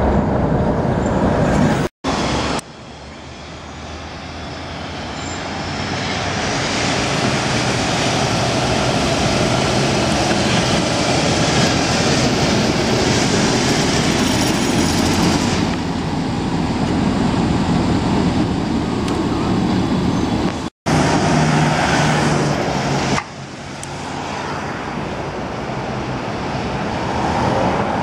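Tatra trams running along a street track among passing cars: a steady rolling rumble and hiss that swells over several seconds as a tram comes closer. The sound breaks off abruptly twice and starts again at a new level.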